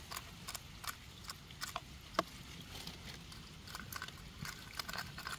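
An eggshell handled and tipped over a plastic tub, making scattered light clicks and taps, with one sharper tap about two seconds in.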